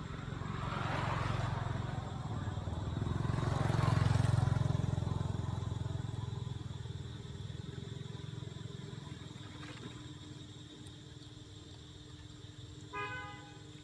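Motor vehicles passing on a nearby road: an engine rumble swells about a second in, grows louder around four seconds and slowly fades away. A short pitched tone sounds near the end.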